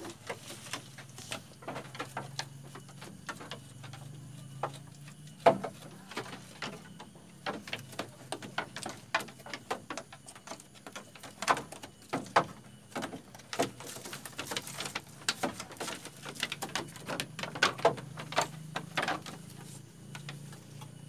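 Goats moving and feeding in a wooden pen with a slatted floor: an irregular run of clicks and knocks, a few sharper ones now and then, over a faint low hum.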